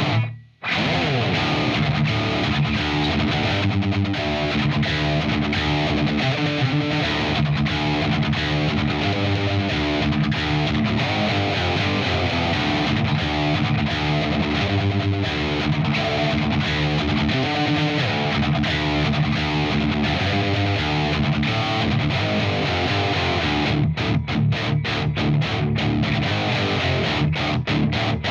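Distorted electric guitar played through a Friedman JEL-100 100-watt amp head and Friedman cabinet, riffing continuously after a brief stop about half a second in. It breaks into short, choppy stabbed chords near the end.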